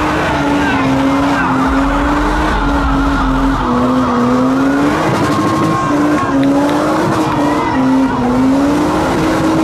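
A modified car's engine held high in the revs, its pitch wavering up and down, over the squeal of spinning tyres as the car is driven hard out of the meet.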